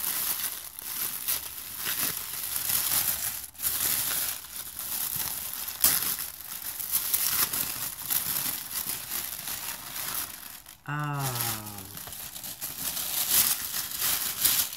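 Wrapping paper crinkling and tearing as a gift is unwrapped by hand, in irregular rustling bursts. About eleven seconds in there is a brief falling vocal sound.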